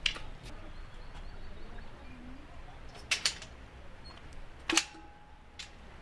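Metal security door being unlatched and swung open: a sharp click at the start, two quick clicks about three seconds in, and the loudest metallic clank just under five seconds in, followed by a thin steady squeal lasting about a second.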